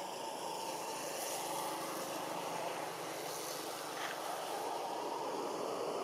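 Steady outdoor background noise: an even, low hum with no distinct calls or knocks.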